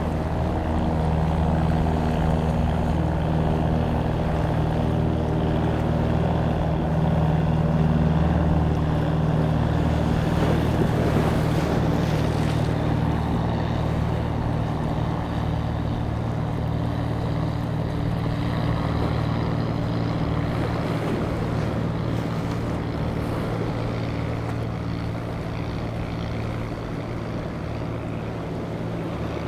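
A motorboat engine running steadily at low revs, a constant hum that is strongest in the first third and then eases off, over wind and choppy water.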